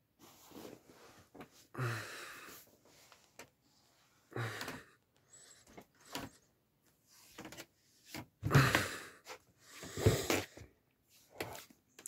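A person climbing barefoot down a wooden ladder: a handful of short, breathy puffs and bumps, spaced a few seconds apart, with light knocks between them, the loudest two in the second half.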